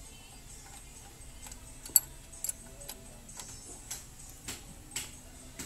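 Irregular light metallic clicks and taps, a sharp one about two seconds in, from a spanner working at the clutch bleeder nipple while the clutch hydraulics are bled.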